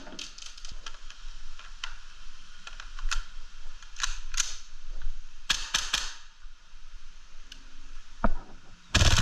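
Novritsch SSQ4 HPA airsoft rifle being triggered on full auto: a run of sharp clicks and short puffs of compressed air from the barrel, with a louder burst near the end. It is the sign of the full-auto fault: air comes out of the barrel but the gun does not shoot.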